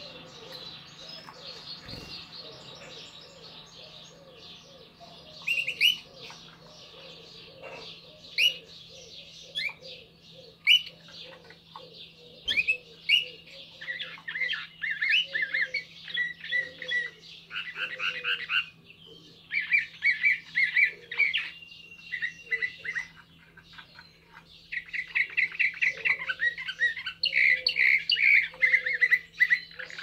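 Serbian Slavujar song canary singing. Soft warbling at first, then sharp chirps from a few seconds in, building to fast, loud rolling trills in the second half.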